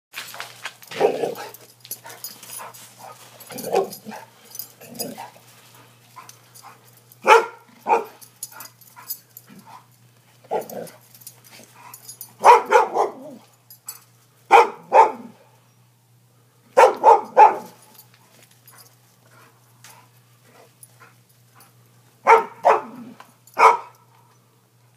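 Two dogs barking at each other as they fight, in short runs of two or three barks every few seconds. The barks in the first few seconds are lower-pitched and single.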